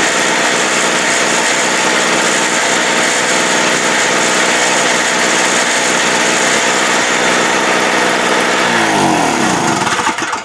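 Harbor Freight Tailgater portable generator's small engine running steadily, then shut off near the end, its pitch falling as it winds down.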